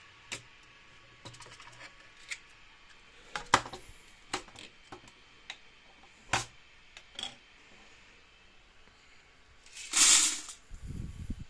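Plastic filter cartridge parts being handled: scattered clicks and knocks, some sharp, as pieces are pulled apart and set down. About ten seconds in comes a loud rattling rush lasting about a second, followed by a lower rumble.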